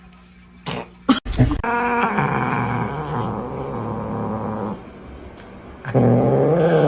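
A dog making two long, drawn-out vocal sounds. The first lasts about three seconds; the second starts near the end and rises, then falls, in pitch.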